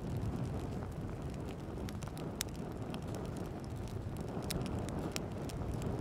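Small wood fire burning in a Firebox twig stove: scattered sharp crackles and pops over a steady low rushing noise.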